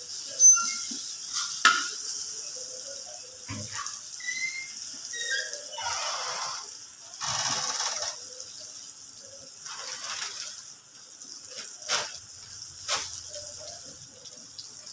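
Butter melting and sizzling in an aluminium wok over a gas flame, while a metal spatula scrapes around the pan and taps sharply against it a few times.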